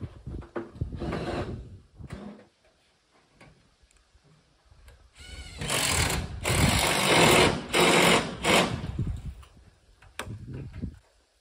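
Rapid mechanical rattling from a power tool, in bursts, the longest and loudest lasting about three seconds midway.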